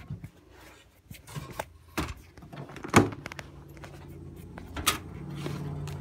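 A door being unlatched and pushed open: a few clicks and knocks, the loudest a sharp knock about three seconds in, followed by a low steady hum.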